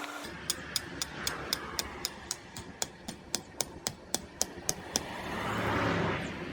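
A fast, even series of sharp ticks, about four a second, for around four and a half seconds, over a low steady background; near the end a broad swell of noise builds, like a vehicle going past.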